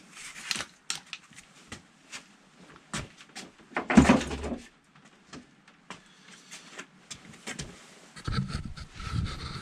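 Handling noises in a small garage workshop: scattered light clicks and knocks, one louder clunk about four seconds in, and rustling and shuffling near the end.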